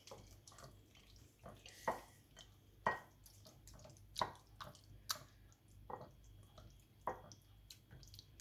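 One hand squeezing and turning raw boneless chicken thigh pieces in a wet marinade of egg, ginger-garlic paste and spices in a bowl: wet squelches and smacks at an uneven pace, about one a second.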